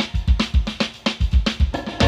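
Background music with a drum kit playing a steady, quick beat.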